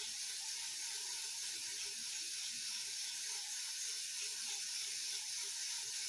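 Ribbon spool of a manual typewriter being turned by hand, its ratchet mechanism clicking faintly as the ribbon is wound back to the right-hand spool.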